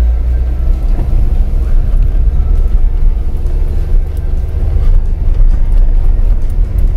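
Car driving: a loud, steady low rumble of engine and road noise.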